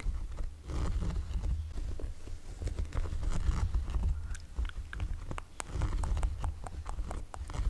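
Close-miked ASMR tapping and rubbing: many irregular soft clicks and taps over a steady low rumble, like hands and fabric brushing against the microphone.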